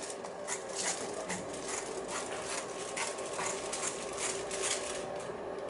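Fresh banana leaves crinkling and rustling as they are spread and pressed flat by hand, a run of soft irregular crackles over a faint steady hum.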